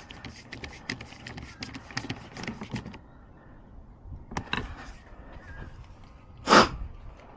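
Light clicks and rattles of small screws and a screwdriver as screws go back into a car's door panel, then a single short, loud burst of noise about six and a half seconds in.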